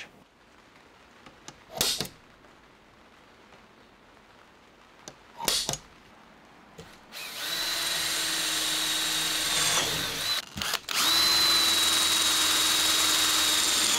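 Cordless drill boring through the sack barrow's metal toe plate into the wood beneath. It runs at a steady speed from about halfway through and stops briefly once before running on. Two short knocks come earlier.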